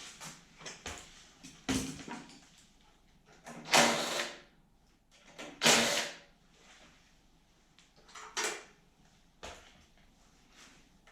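Clicks and knocks of tools and parts being handled while working on a snowblower, with two loud, short rushes of hissing noise about four and six seconds in and a smaller one near eight and a half seconds.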